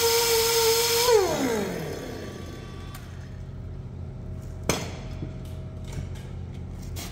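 A high-speed power tool whines at a steady pitch, then is switched off about a second in and winds down quickly. Afterwards a low hum remains, with two sharp clinks, one just before 5 seconds and one near the end.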